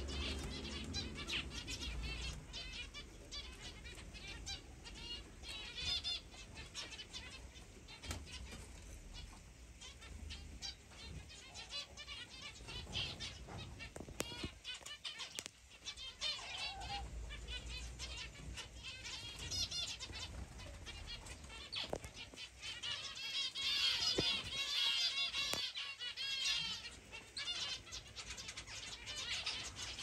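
A mixed aviary flock of small finches and canaries chirping and twittering, with wings fluttering as birds fly between perches. The chirping is densest a little over two-thirds of the way through, and a low rumble comes and goes.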